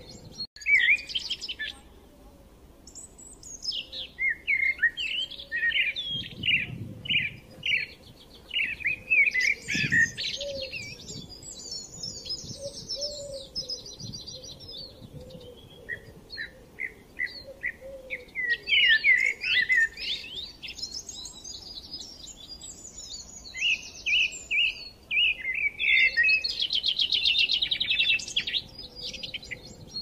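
A flock of white cockatoos calling: runs of short, high, rasping calls, many birds at once, coming in clusters again and again.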